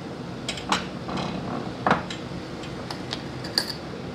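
Spice jars and their lids being handled on a kitchen counter: about half a dozen sharp clicks and knocks, one near the end with a brief glassy ring, over a steady low hum.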